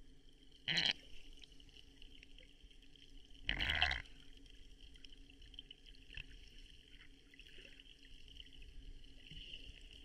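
Water splashing twice, briefly, the second splash longer and fuller, over a steady faint high-pitched hiss.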